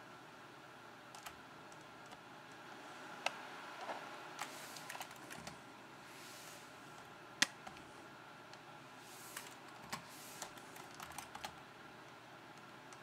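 Computer keyboard keys pressed one at a time, irregular clicks and taps while moving through the BIOS menus, with one sharper click about halfway through that is the loudest.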